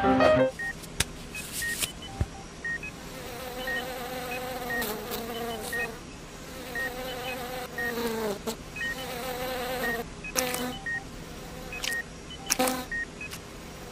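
Heart-monitor beep effect: a short high beep about once a second, over a buzzing hum that wavers and dips in pitch. A few sharp clicks from handling come through, the loudest about 10 and 12 seconds in.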